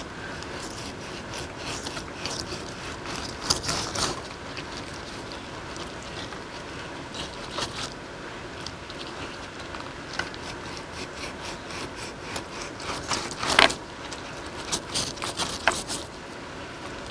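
Knife slicing through raw beef on a wooden cutting board: soft wet cutting and scraping sounds with scattered sharp clicks, the loudest about 13 and a half seconds in.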